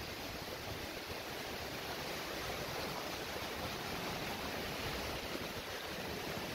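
Steady rushing of a waterfall, with water spilling and splashing over rocks close by.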